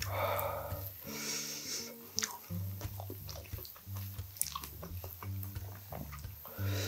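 Wooden spoon scraping and stirring fried rice in a black two-handled pan, with scattered clicks and chewing sounds, over soft background music with a low bass line.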